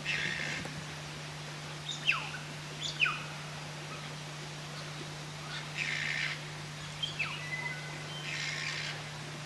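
Wild birds calling: sharp whistles that glide steeply downward, three of them, mixed with three short noisy chattering calls, over a steady low hum.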